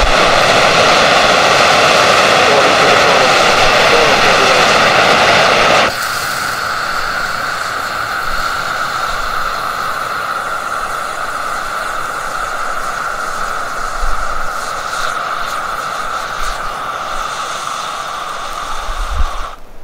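Pyrotechnic red distress hand flare, a year past its expiry date, burning with a steady loud hiss and rush. About six seconds in it drops suddenly to a quieter steady hiss, and it stops just before the end as the flare burns out.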